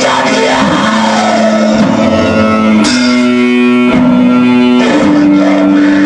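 Black metal instrumental: heavily distorted electric guitar holding long notes that change pitch about once a second.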